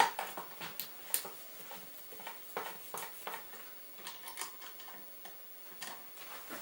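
Receptacle mounting screws being turned in to fasten a combination USB receptacle into its wall box: faint, irregular small clicks and scrapes of metal on the yoke and box.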